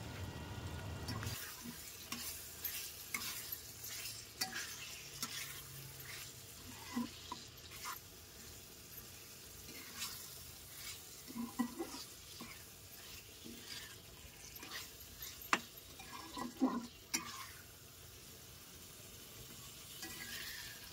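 Flat spatula stirring and scraping chunks of taro root through thick masala in a kadhai, a run of irregular scrapes and taps against the pan, with light sizzling of the masala frying underneath.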